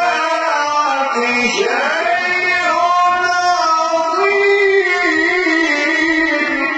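A man's voice reciting the Quran in the melodic, drawn-out tajweed style, holding long ornamented notes with a rising glide about one and a half seconds in.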